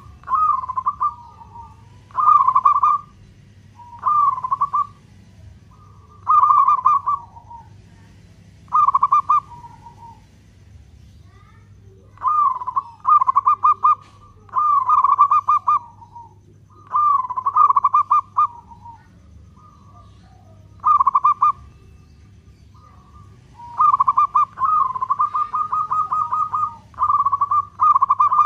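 Zebra dove (Indonesian local perkutut) singing: phrases of quick, rolling coo notes, about one every two seconds, with a longer run of notes near the end.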